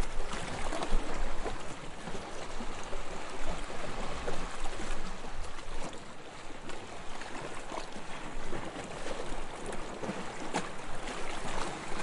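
Calm waves lapping: a continuous wash of water with many small splashes and slaps, rising and falling gently.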